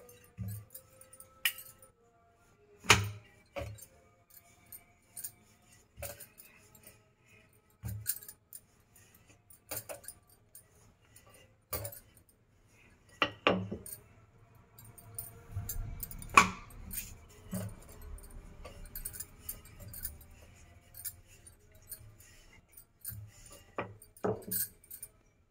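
Glass bangles clinking and a wooden rolling pin knocking and rolling on a granite counter as dough is rolled out thin: sharp, irregular clicks every second or two, with a low rolling rumble from about fifteen to twenty seconds in.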